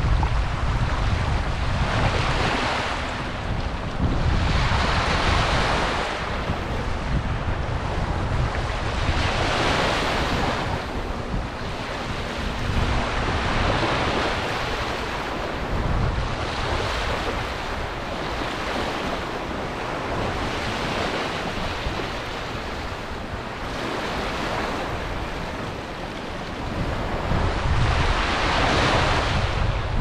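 Small shore-break waves breaking and washing up over the sand, swelling and ebbing every few seconds, with wind rumbling on the microphone.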